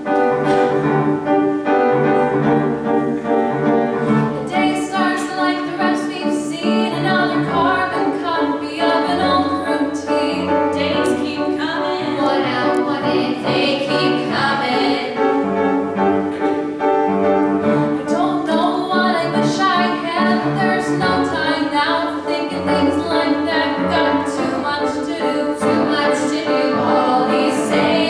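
Group of voices singing a musical-theatre number with instrumental accompaniment.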